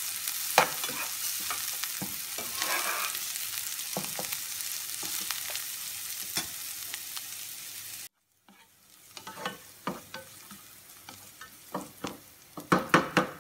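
Sliced onion, garlic and chopped ginger sizzling in hot oil in a non-stick frying pan while a spatula stirs them, clicking and scraping on the pan. The sizzle is steady for about eight seconds, cuts off abruptly, then comes back quieter with sharper, louder spatula clicks near the end.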